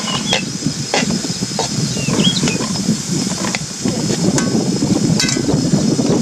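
A metal spatula stirring and scraping bamboo shoots in a steel kadhai over a gas burner, with irregular clinks of the spatula against the pan over a steady hissing rush.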